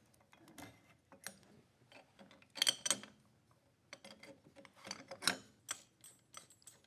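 Small steel parts being handled on the bench: scattered clicks and knocks, with two brighter ringing metal clinks, about two and a half seconds in and again about five seconds in.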